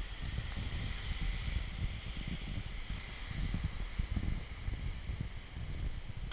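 Wind rumbling unevenly on the camera microphone, over a steady hiss.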